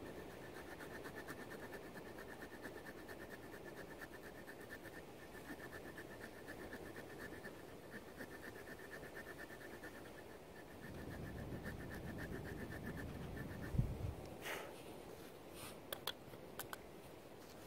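Faint scraping and rubbing of a small log being worked by hand with a hand tool, with a knock about three-quarters of the way through and a few sharp clicks after it. A faint high fluttering tone runs under the first three-quarters and then stops.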